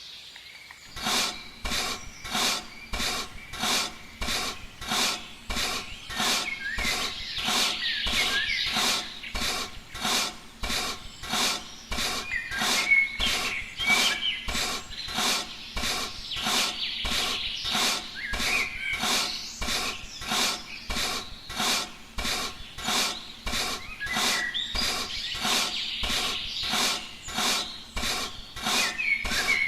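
Rhythmic scraping or rasping, about two even strokes a second, kept up steadily throughout.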